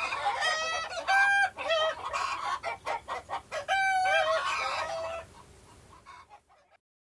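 Domestic hens calling: a series of short, high, pitched clucks and squawks, about six of them, fading out about six seconds in.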